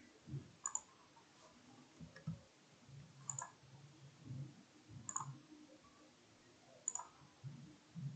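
Faint computer mouse clicks: about four single clicks a second or two apart, placing wire points in a schematic drawing program.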